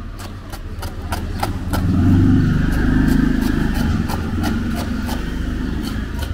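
Knife chopping a red onion on a wooden board: quick, evenly spaced taps, about four a second. Underneath, a motor vehicle's engine passes close by, swelling to the loudest sound about two seconds in and easing off after.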